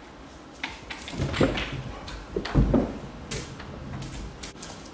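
An upholstered chair being carried in through a doorway and set down on the floor: a string of knocks and thumps, the heaviest about two and a half seconds in.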